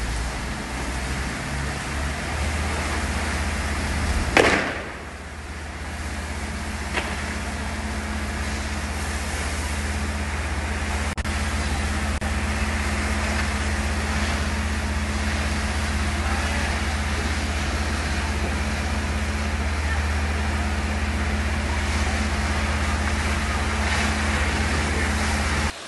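Fire engine running with a steady low drone over the broad rushing noise of cars burning; a sudden loud burst sounds about four and a half seconds in, and a steady higher hum joins the drone about six seconds in.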